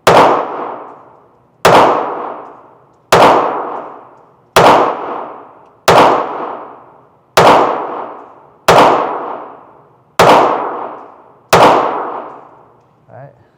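Ruger Mark IV .22 LR semi-automatic pistol fired in slow, steady succession: nine shots about a second and a half apart, each followed by a ringing echo that dies away before the next.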